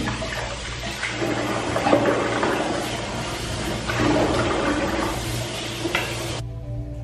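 Water running hard, a steady rush that stops abruptly a little over six seconds in.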